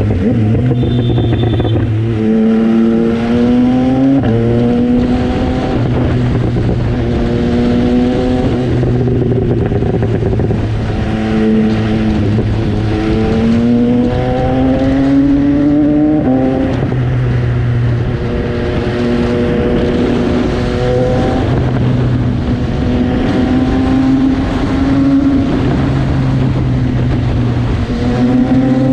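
MV Agusta Brutale 800's 800 cc three-cylinder engine under way. It climbs in pitch twice and drops sharply at each upshift, about four seconds in and again around sixteen seconds. Between the shifts it runs at steady speed.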